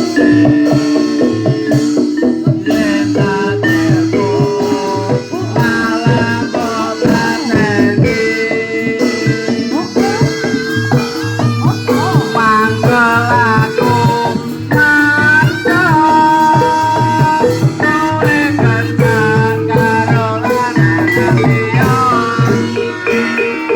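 Javanese gamelan-style barongan accompaniment: drum beats and struck metallophone notes under a wavering melody line, playing steadily throughout.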